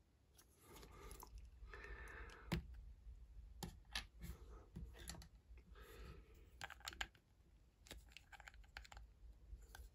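Faint clicks and rustles of small plastic Lego pieces being handled, as a Lego cat figure is taken off the studs of a brick stand and another is picked up. The sharpest click comes about two and a half seconds in.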